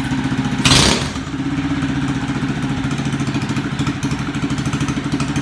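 Quad (ATV) engine ending a burnout with a short loud burst just under a second in, then settling to a steady idle with an even, fast pulsing beat.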